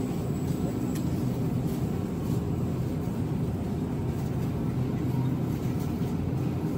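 Steady low hum of supermarket background noise from refrigerated display cases and ventilation, with a few faint clicks.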